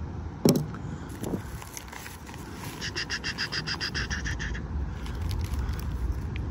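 Plastic mailer and bag being handled, with a sharp knock about half a second in. In the middle comes a rhythmic trilling animal call, about six pulses a second for nearly two seconds.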